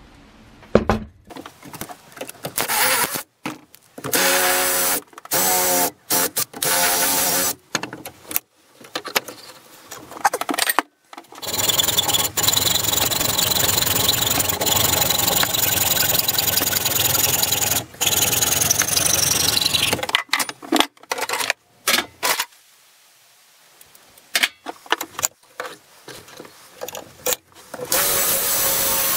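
A power saw with a long flat blade cutting through the old wooden handle at a hammer head. It runs steadily for about eight seconds, then winds down, after several shorter start-stop bursts of tool noise. Near the end an electric drill starts boring out the wood left in the hammer's eye.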